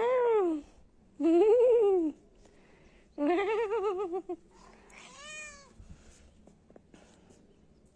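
A cat meowing: three long meows of about a second each, their pitch wavering, then a fainter, higher meow about five seconds in.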